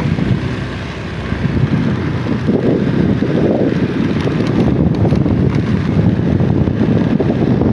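Wind buffeting the microphone of a phone carried on a moving vehicle, with the vehicle's engine and road noise running underneath.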